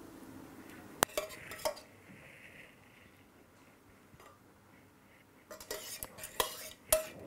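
A metal spoon clinking and scraping against a stainless steel pan and a glass baking dish as sauce is spooned out: one sharp clink about a second in, a few lighter taps, a quiet stretch, then a run of scrapes and clinks near the end.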